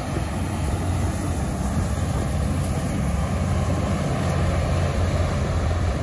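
Passenger hovercraft's engines and twin ducted propellers running at power as it moves off the shingle beach and out over the waves: a steady low drone over a rushing hiss of air and spray.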